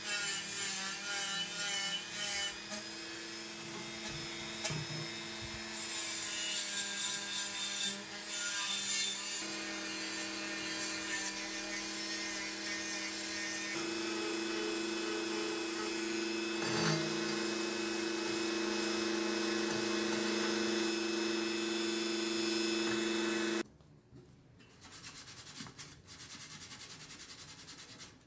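Handheld Dremel-type rotary tool running at speed with a steady whine, its small bit scrubbing rust off a steel clock frame with a gritty hiss. The motor cuts off about three-quarters of the way through, leaving quiet handling of the metal frame.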